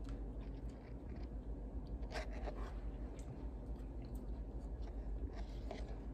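Faint handling noise: soft rustles and small clicks from hands moving a doll and the recording device, over a low steady hum, with small clusters about two seconds in and again near the end.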